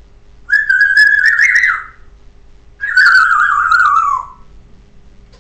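Pet parrot whistling two long notes, the first held and rising slightly near its end, the second gliding downward.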